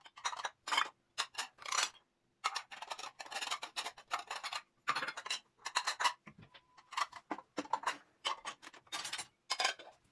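Dishes, cups and glass bowls clinking and clattering as they are set into a dishwasher's wire top rack, in quick irregular bursts with short pauses between them.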